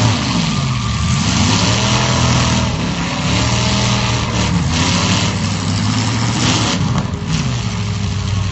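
Several demolition derby cars' engines revving up and down at once, over a constant rush of noise, with a few short louder bursts of noise around the middle.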